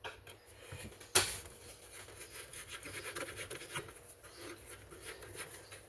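Long screwdriver working a screw in a chainsaw's handle: faint scraping and small clicks of metal on metal, with one sharper click about a second in.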